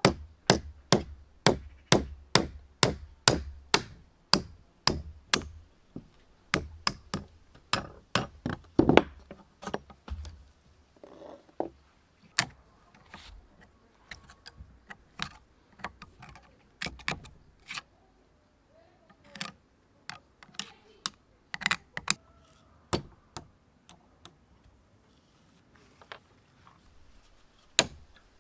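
Hammer tapping a steel punch to drive rusted shafts and pins out of an antique hand drill's cast gear frame held in a vise: sharp metal-on-metal taps, about three a second at first, then in irregular runs with short pauses. The parts are seized with rust and hard to knock free.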